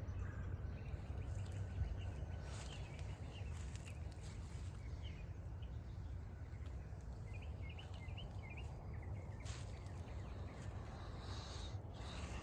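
Outdoor ambience: small birds chirping faintly in short calls over a steady low rumble, with a few brief rustles near the end.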